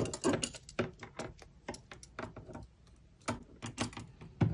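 Metal double-pointed knitting needles clicking and tapping against each other as the work is handled, in an irregular run of light clicks.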